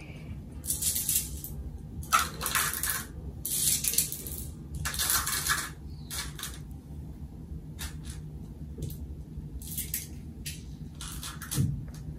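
A knife blade slicing down through a firm homemade soap loaf in a series of scraping, crunching strokes, four longer ones in the first six seconds, then shorter ones.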